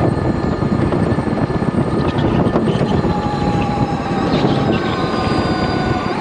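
Electric go-kart driven at speed, heard onboard: the electric motor's whine as several steady tones that shift slightly in pitch with speed, over a loud low rumble.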